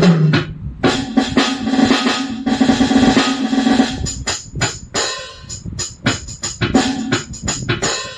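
Roland SPD-20 Pro electronic percussion pad playing drum-kit sounds: a sustained roll first, then a run of quick separate strikes from about four seconds in.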